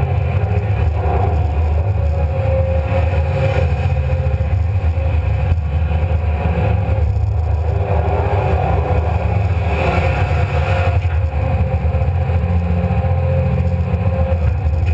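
Komatsu PC300 hydraulic excavator's six-cylinder diesel engine running steadily as the machine swings, dumps a bucket of sand into a dump truck and swings back, heard close up from the machine's cab.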